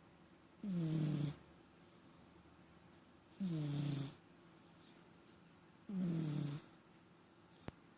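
House cat snoring: three snores about two and a half seconds apart, each under a second long with a falling pitch.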